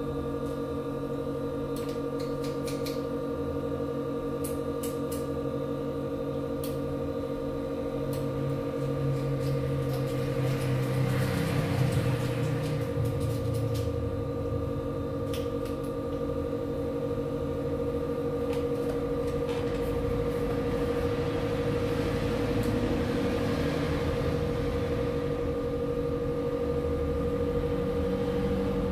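Steady electrical hum of running repair-bench equipment, with scattered light clicks and taps of small hand tools and a low rumble that swells for a few seconds around the middle.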